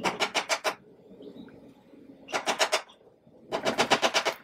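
Hand rasp shaping a new block of wood: three bursts of fast, chattering scrapes, one at the start, one in the middle and one near the end.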